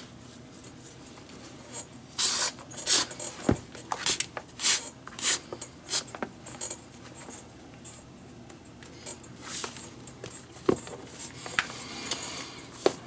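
Leather lace being pulled through the lacing holes of a baseball glove's trap-eze web: a quick run of short scraping pulls a couple of seconds in, then a few light clicks near the end.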